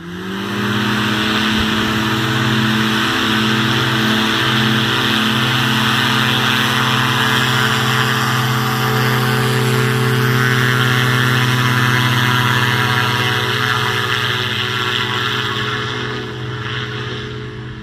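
Powered paraglider trike's engine and propeller running at steady high power through the wing inflation and takeoff roll, a steady drone with a strong low hum. It fades somewhat over the last couple of seconds as the trike moves away.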